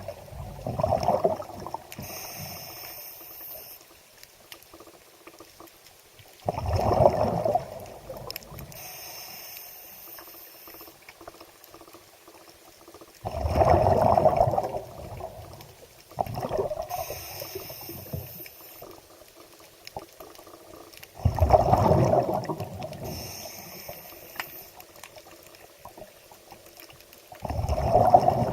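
Water sloshing and gurgling in slow, regular surges, a loud rush about every seven seconds that fades into quieter trickling between them.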